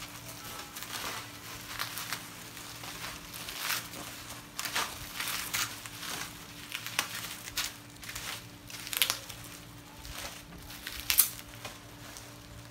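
Bubble wrap rustling and crinkling as it is handled and pulled off a replacement laptop LCD panel, with irregular sharp crackles; the loudest comes near the end.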